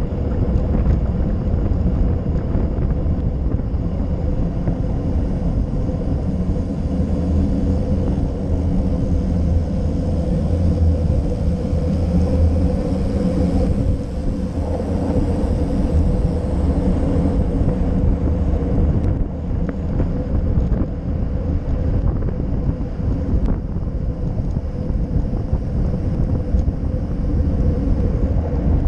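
Wind rushing and buffeting over a handlebar-mounted GoPro Session on a road bike descending at speed: a steady, loud, deep rumble of wind noise with little change throughout.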